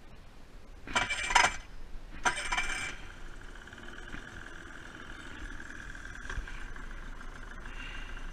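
A 30 hp two-stroke Tohatsu outboard motor starting: two short loud bursts about a second apart, catching on the second, then settling into a steady idle.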